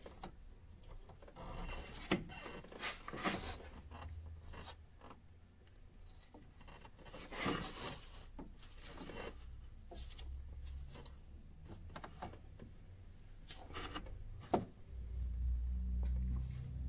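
Gloved hands working a part loose on a BMW diesel's intake in the engine bay: uneven rubbing and scraping of plastic and metal with a few sharp clicks as the component is pulled free.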